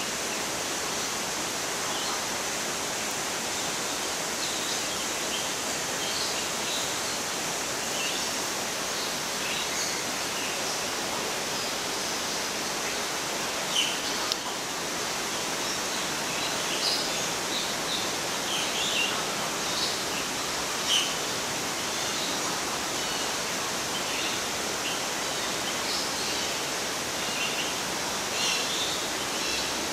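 Steady outdoor hiss with scattered short, high bird chirps throughout, a few of them louder about 14 and 21 seconds in.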